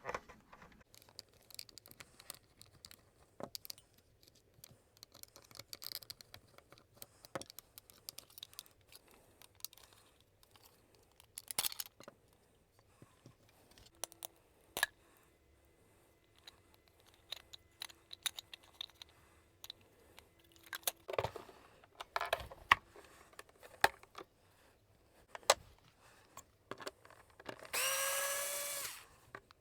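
Scattered clicks and knocks of plastic vacuum-cleaner parts being handled and taken apart, then near the end a power driver whirs in two short runs, backing out screws.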